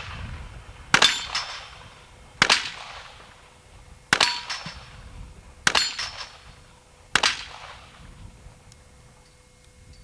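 .38 revolver fired five times in steady succession, about one and a half seconds apart, each shot sharp and followed by a short echo. The shots stop about seven seconds in.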